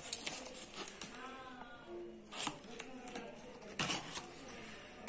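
Cardboard shipping box being opened by hand: sealing tape pulled and torn free and the cardboard scraped and knocked, in several short noisy strokes. The loudest come about two and a half seconds in and just before four seconds.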